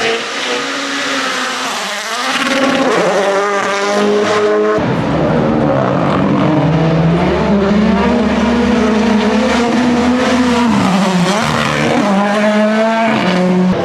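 A Rally1 rally car's turbocharged engine at hard throttle, rising in pitch in repeated sweeps as it shifts up. It gets much louder and fuller about five seconds in and holds a steady note for several seconds, then climbs in sweeps again near the end.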